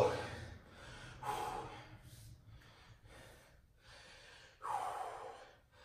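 A man breathing hard, taking several deep, gasping breaths in and out as he catches his breath after exercise; the loudest breath comes near the end.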